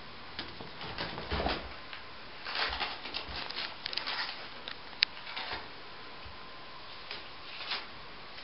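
Crumpled paper ball crinkling and rustling in irregular bursts as a cat bats, bites and clutches it with its paws, with a few soft thumps and one sharp click about five seconds in, over a steady hiss.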